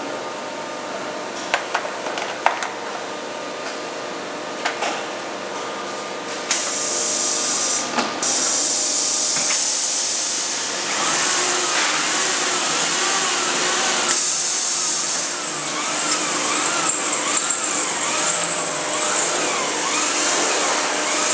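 Ultrasonic plastic-welding machine at work: a low hum with a few sharp clicks at first, then a loud steady hiss starting about six seconds in. Later a whine rises and falls over and over, about once a second, on top of the hiss.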